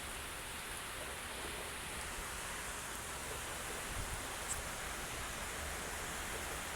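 Steady rushing noise of typhoon weather: wind and rain, even and unbroken.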